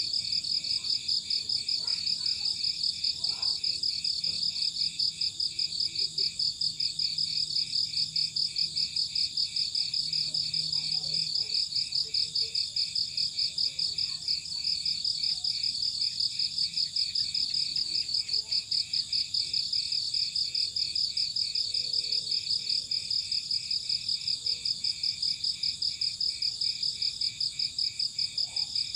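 Crickets chirping steadily in a high-pitched, even rhythm of several chirps a second, unbroken throughout.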